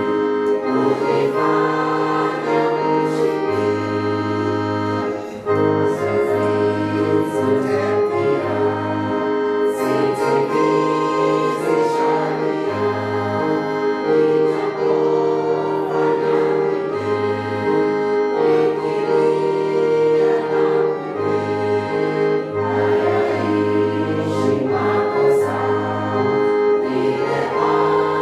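Church music: a choir singing over sustained keyboard chords, with a bass line that changes every second or two.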